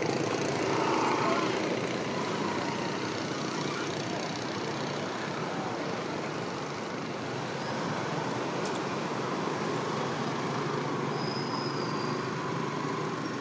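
Steady hum of road traffic, with a faint short high chirp near the end.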